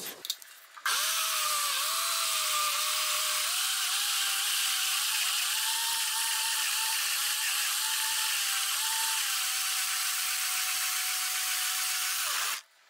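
Electric mixer grinder running, blending half-frozen ice cream mix in its plastic jar: it starts about a second in with a steady whir and a whine that rises in pitch over the first few seconds, then holds steady, and cuts off suddenly near the end.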